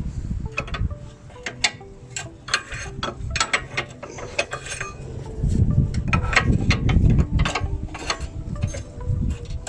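Hand tools working on the car's suspension: a ratchet wrench clicking in quick runs on the bolts, with heavier low-pitched knocking and rattling of metal parts over a few seconds past the midpoint.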